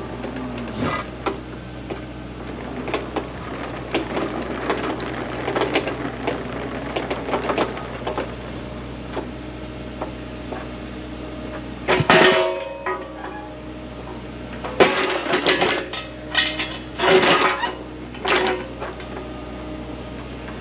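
Plucked-guitar background music over a running excavator engine and a series of sharp metal clanks and knocks, which get louder and more frequent from about halfway through.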